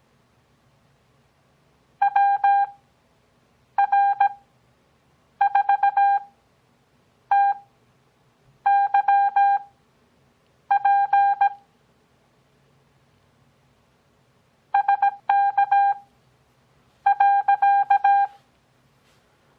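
Morse code (CW) practice tone: a steady beep keyed into dots and dashes, sending about nine characters at 17 WPM character speed, with long Farnsworth gaps between characters for an overall speed of 6 WPM.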